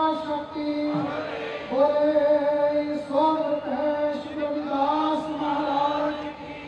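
A man's voice chanting a devotional prayer into a microphone, in long held, slightly wavering notes with short breaks between phrases.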